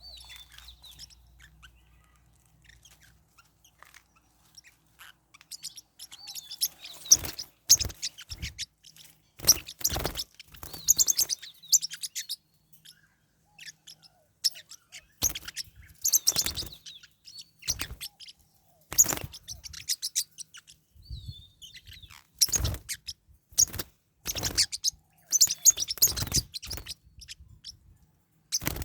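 Forpus parrotlets chirping in repeated bursts of a second or two, high-pitched and rapid, mixed with sharp knocks.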